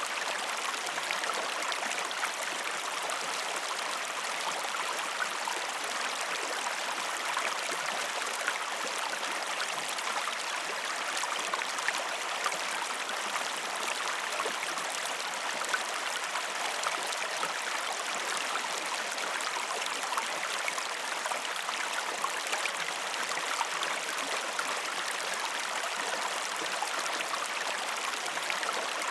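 Waterfall: falling water splashing steadily, a constant rushing hiss with no change in level.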